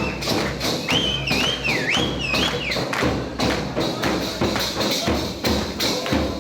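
Music with a steady, fast drum beat of about three to four strikes a second. A high wavering melodic line enters about a second in and stops about two seconds later.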